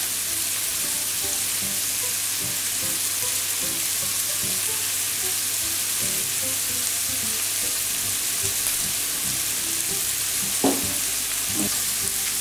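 Onions and diced poultry sizzling steadily in oil in a frying pan. Near the end a spatula knocks against the pan twice as the mixture is stirred.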